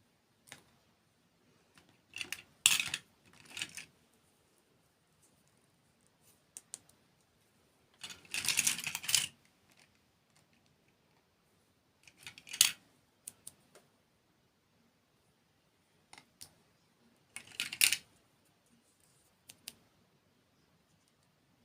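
Close-miked eating sounds: crisp bites and crunches of dessert, coming in short bursts about a second long, five or six times, with quiet pauses between.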